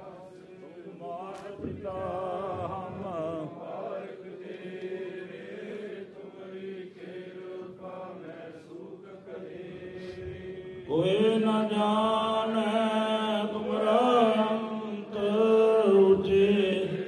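Sikh devotional chanting: voices sing long drawn-out notes, becoming clearly louder and fuller about eleven seconds in.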